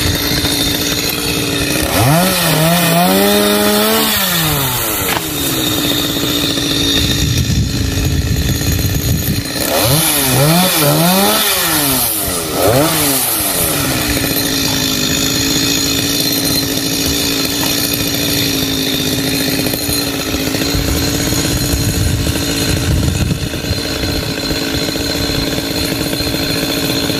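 Stihl MS 382 two-stroke chainsaw running at idle, revved up and back down once about two seconds in, then given several quick throttle blips around ten to thirteen seconds in before settling back to idle.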